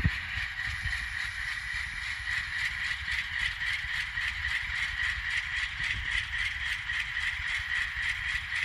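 LokSound sound decoder playing a GE diesel prime mover at low throttle through an N scale locomotive's small speaker, a thin, rattly steady tone with rapid even ticking, as the model creeps at speed step 1.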